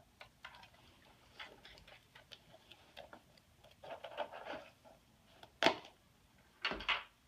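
Rustling and small clicks of a drawstring treat pouch being handled, with a busier patch about four seconds in, a short sharp snap about five and a half seconds in, and a louder rustle near the end.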